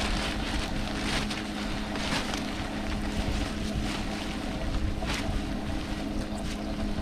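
Wind buffeting the microphone over the steady hum of a boat motor running, with a few short rustles about one, two and five seconds in.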